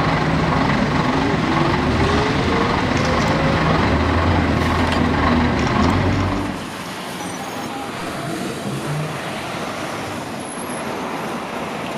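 Diesel engine of a vintage AEC Regent III double-decker bus running, with a rising whine between about one and a half and three and a half seconds in. About six and a half seconds in it gives way to quieter bus-station traffic noise.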